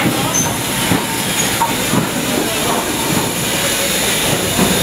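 BR Standard Class 4 2-6-4 tank engine 80104 moving slowly past along a station platform: a steady rumble of wheels and running gear on the rails, with occasional knocks and brief wheel squeals.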